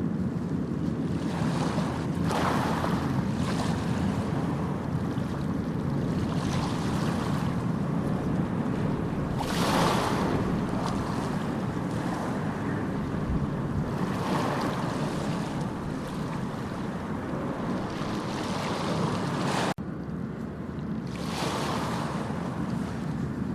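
Sea waves breaking and washing ashore: a steady low rumble of surf with a hissing surge as each wave spills in, every few seconds. The sound dips suddenly and briefly just before the end.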